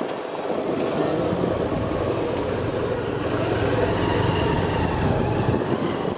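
Motor scooter running on the move, a steady engine hum under rough road and wind noise, which cuts off suddenly at the end.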